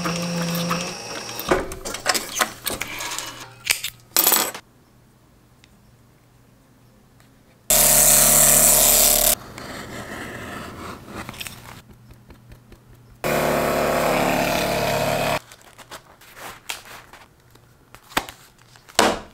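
Leather sewing machine stitching for about the first second, followed by clicks and scraping of hand tools on leather. A power tool runs in two bursts of about two seconds each, and a few sharp clicks come near the end.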